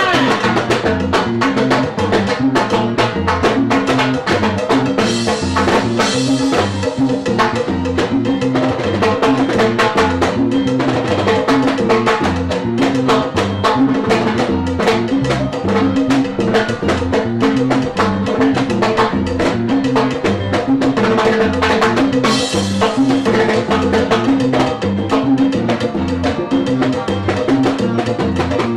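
Live Latin dance band playing, with timbales and cowbell strikes over a repeating bass line.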